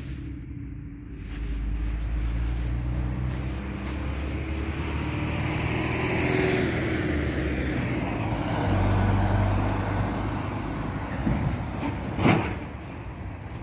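Road traffic passing, with the low engine rumble of heavy vehicles. One vehicle passes about six seconds in, its pitch falling as it goes by, and there is a short sharp thump near the end.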